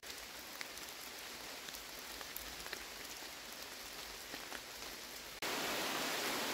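Steady rain with scattered raindrops ticking close by. A little over five seconds in, it cuts abruptly to a louder, even hiss.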